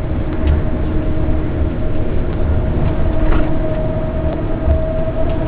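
Cabin noise inside a Mitsubishi Fuso Aero Queen I coach: a steady low engine drone and rumble with a constant whine running through it.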